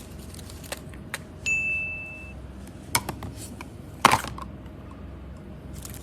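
A few sharp clicks and knocks of small hard objects, the loudest about four seconds in, and a short high ding lasting under a second around the middle.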